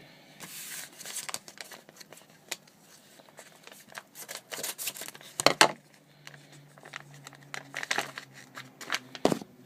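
A mail package being opened by hand: paper and packaging crinkling and tearing in irregular rustles and clicks, with the sharpest rips about five and a half seconds in and again near the end.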